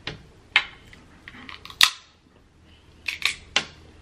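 Boiled Dungeness crab shell cracked and snapped apart by hand: several sharp cracks, the loudest a little before two seconds in and a quick run of three near the end.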